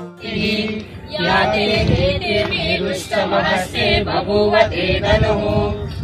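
A group of men and women singing a prayer together in unison.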